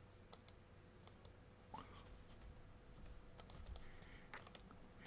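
Near silence with faint scattered clicks and light handling noise as a tool bit is moved slowly into place by hand.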